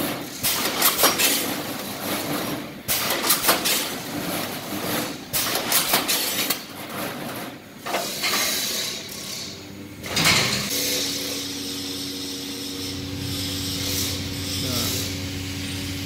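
Pneumatic reinforcing-mesh welding machine running, its air cylinders knocking and hissing irregularly as it welds steel rebar mesh. After about ten seconds this gives way to a steady low hum.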